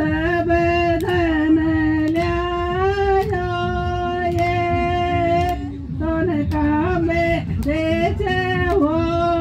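A woman sings a Meena folk song, a 'bhaat' wedding song in the Meeni language, solo through a microphone. She sings in long held, slightly wavering notes, with a brief break near the middle.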